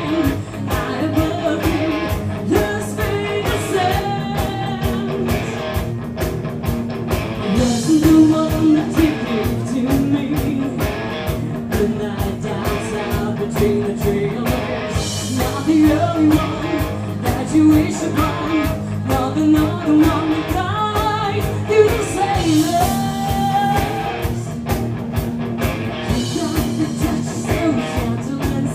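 Live rock band playing: a woman sings lead over electric guitars and drums, recorded from the audience.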